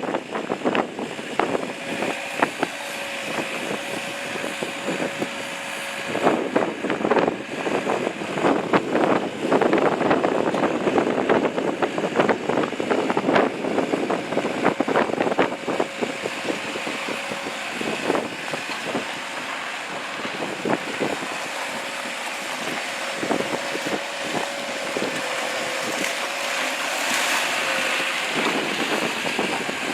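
Excavator engine running under load, with a steady hydraulic whine and irregular knocks and clatter from the working machine.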